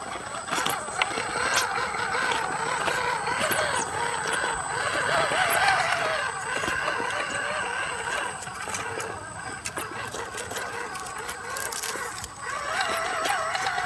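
Scale RC rock crawler (Vaterra Ascender-based Jeep JK) climbing rock: its electric motor and gears whine, the pitch wavering up and down with the throttle. Scattered clicks and scrapes come from the tyres on the rock. The whine eases off about two-thirds of the way through and picks up again near the end.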